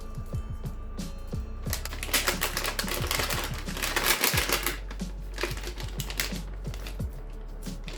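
Keys of a Gamakay MK61 mechanical keyboard clacking under rapid typing, a dense flurry in the middle that thins to scattered key presses, over background music with a steady beat.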